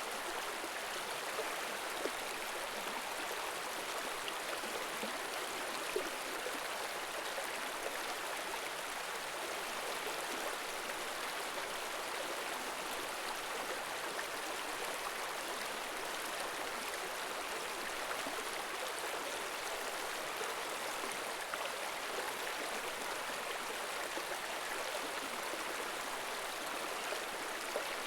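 River water running over rocks: a steady, even rush of flowing water with no change in strength.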